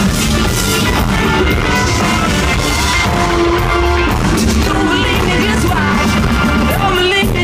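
A live pop-rock band playing loudly, recorded from the audience: electric guitar, bass and drums in a funk-style groove, with voices singing or shouting over it in places.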